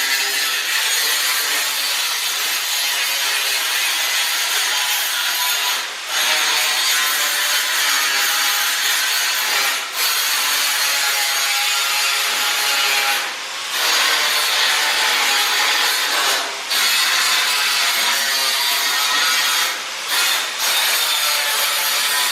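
CNC plasma cutter cutting designs out of sheet metal: a loud, steady hiss, broken by short dips every three to four seconds.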